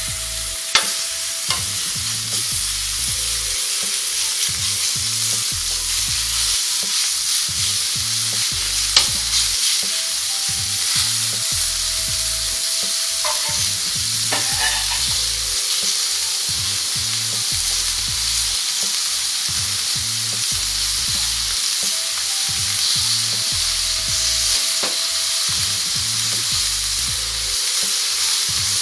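Cubes of raw beef sizzling on a hot flat-top griddle: a steady high frying hiss, with a few sharp clicks scattered through it.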